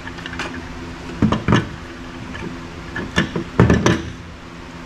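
Several sharp knocks and clanks of metal parts being handled in an old steel toolbox, with an old horn set down on a truck's plastic bed liner; the loudest knocks come near the end.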